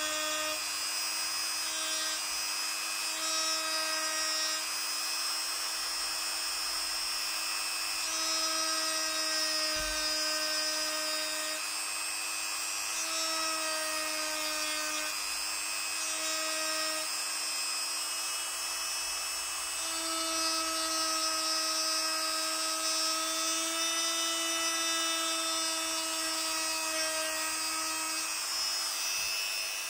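Vitals Master EU2035JMcs rotary engraver running with a steady high-pitched whine as its fine bit engraves letters into a laminated wooden board, the pitch wavering slightly now and then.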